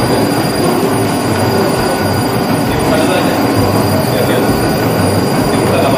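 Twin-screw snack extruder running: its motors and screws make a loud, steady mechanical noise with a thin high whine over it.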